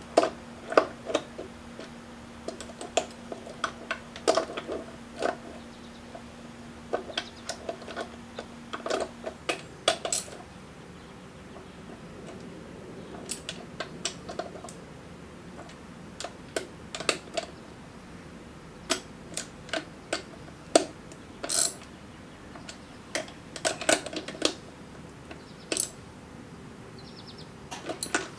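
Steel parts of a Honda B-series manual transmission clicking and clinking irregularly as hands fit and seat the gear stacks and shift forks in the open transmission case. A faint steady hum runs under it for the first nine seconds or so, then stops.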